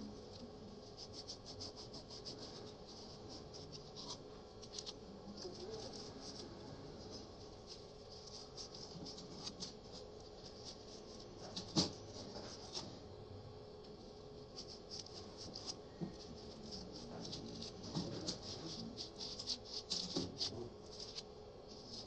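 Small parts of a mini sewing machine clicking and tapping as they are handled and fitted, with one louder knock about twelve seconds in. A faint steady hum runs underneath.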